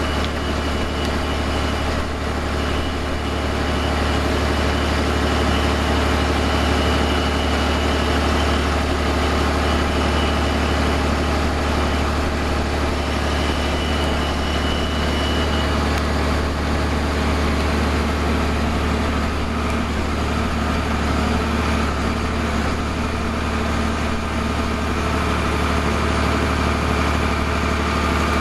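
Large diesel farm machinery running steadily under a deep hum, with a thin high whine coming and going in the first half.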